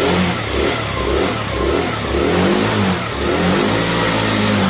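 Scooter engine being revved on the throttle several times, its pitch rising and falling, with a longer, higher rev near the end.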